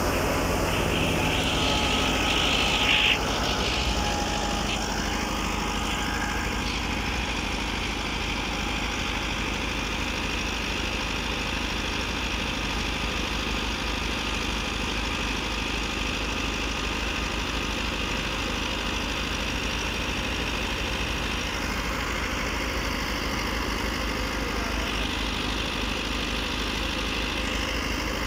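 Massey Ferguson 385 tractor's diesel engine running steadily under load while it powers a wheat thresher, with the thresher's hum mixed in. It is louder for the first three seconds, then settles slightly quieter.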